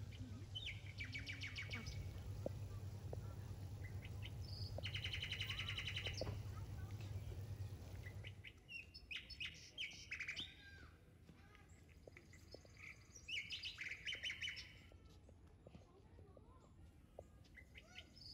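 Birds singing: several short, rapid trills and chirps, high in pitch, over a faint low steady hum that stops about eight seconds in.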